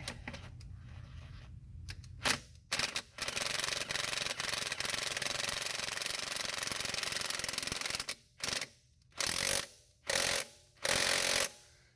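A hissing rush, like a spray or blast of air, with a short burst, one long steady burst of about five seconds, then four short bursts, each cutting on and off sharply.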